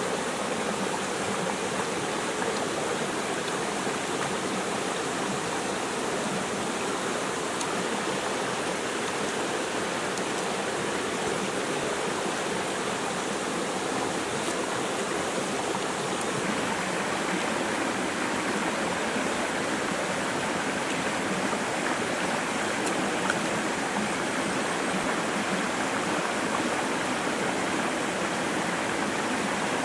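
Shallow rocky stream flowing steadily over stones, an even, unbroken rush of water.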